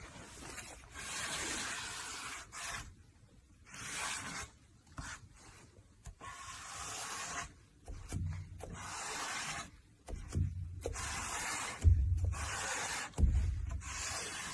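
Wide-tipped paint marker dragged across a stretched canvas: scratchy rubbing in separate strokes with short pauses between them. In the second half a few dull low thumps come in, the two loudest near the end.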